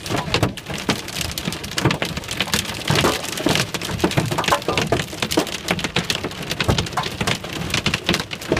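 Heavy rain and hail pelting a car's roof and windshield, heard from inside the cabin: a dense, irregular clatter of hard impacts.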